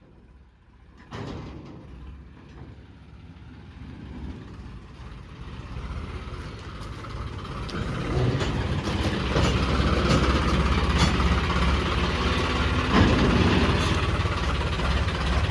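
Tractor diesel engine running. A sudden knock comes about a second in, then the engine sound grows louder over several seconds and holds steady and loud.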